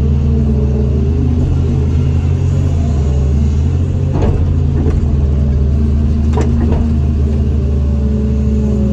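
Caterpillar hydraulic excavator's diesel engine running steadily, heard from the operator's cab, while the machine dumps, swings back and digs. A few sharp knocks come a little past the middle as the bucket digs into the soil.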